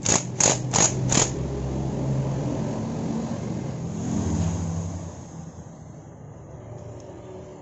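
A quick run of about five sharp clicks, then a steady motor-vehicle engine hum that swells briefly and fades away over the last few seconds.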